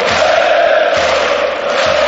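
A huge stadium crowd of football supporters singing a chant in unison on one long wavering note, over a steady low beat a little under once a second.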